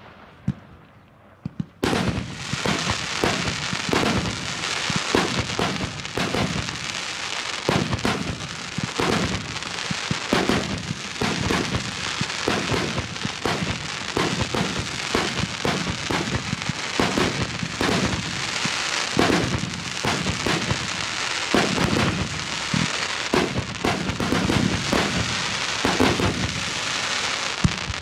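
Aerial fireworks display: after about two seconds of near quiet, a dense stream of overlapping bangs and crackle sets in and keeps going without a break.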